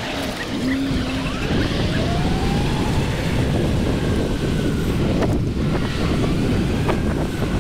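Wind rushing over the microphone as the rider pulls away and picks up speed, building in the first second and then holding steady, with a faint rising whine about two seconds in.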